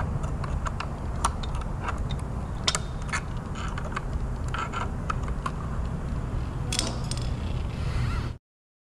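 Irregular metallic clinks and taps of hand tools and metal parts being handled, over a steady low hum. The sound cuts off abruptly near the end.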